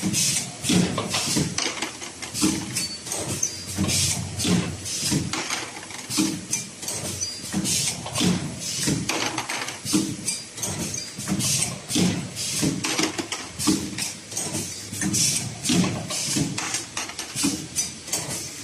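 Automatic wire ring coiling and butt welding machine running its cycle: a rhythmic mechanical clatter that repeats about once or twice a second.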